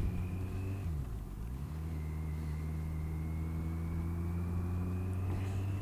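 Kawasaki GTR1400 motorcycle's inline-four engine running under way. Its note drops briefly about a second in, then picks up again and rises slowly as the bike gathers speed.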